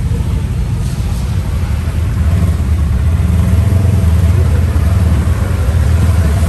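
Off-road buggy (side-by-side UTV) engine running as the buggy drives slowly, a steady low rumble heard from inside the open buggy, rising a little in level about two seconds in.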